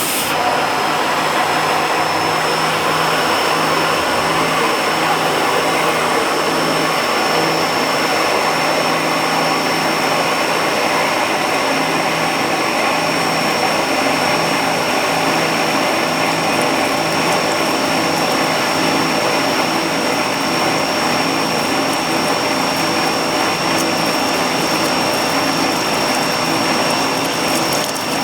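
Four Ryobi electric pressure washers running together at full flow, spraying through a 9.5 nozzle into a bucket at about 975 PSI and just under 5 gallons a minute. The sound is a loud, steady rush of motors, pumps and water jet, with a thin high whine over it.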